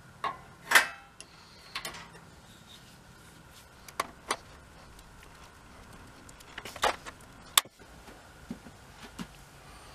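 Scattered light metallic clicks and clinks of sheet-steel brackets and panels being handled and fastened together, with two sharper, louder knocks among them.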